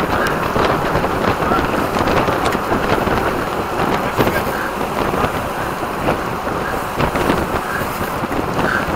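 Wind rushing over the microphone of a camera riding along in a road bike race, a steady dense rush with no letup.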